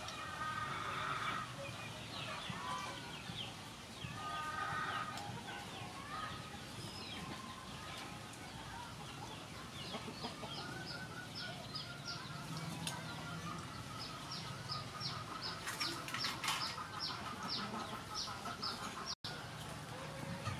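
Chickens clucking, with a high, short chirp repeating about two or three times a second through the second half.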